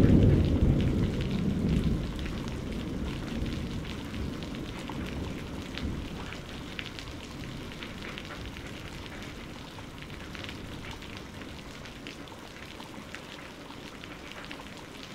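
A deep rumble that dies away over the first few seconds, giving way to a soft, even hiss with scattered light crackles that slowly fades.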